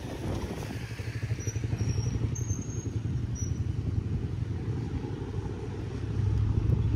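Wind buffeting the microphone: a gusting low rumble that swells near the end.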